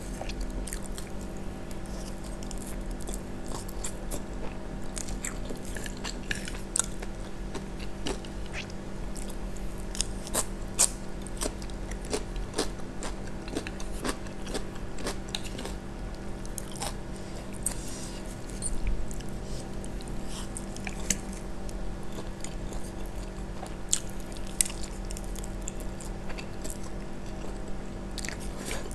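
Close-miked eating: a person chewing fried instant noodles, with many short wet mouth clicks and smacks throughout, and a slurp of noodles near the end.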